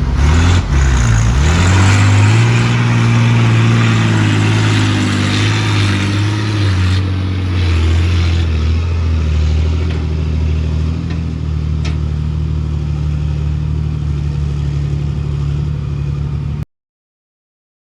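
An engine running under load, its revs rising over the first couple of seconds, then holding steady and easing slightly about seven seconds in; the sound cuts off abruptly near the end.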